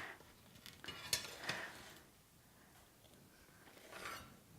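A few light clinks and scrapes of a kitchen utensil against a plate, about a second in, then quiet.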